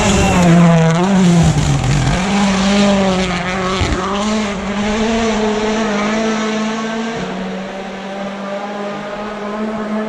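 Rally car engine running hard on the stage. Its revs rise and fall over the first couple of seconds, then hold almost steady for the rest.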